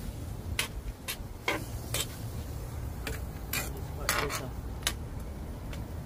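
Metal utensils clinking and tapping against a cooking pot, about nine irregular clinks, some ringing briefly, over a low steady rumble.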